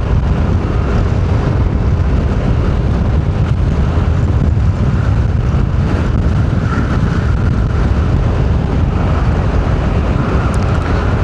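Strong wind buffeting the microphone as a loud, steady low rumble, mixed with the noise of a car driving along the road.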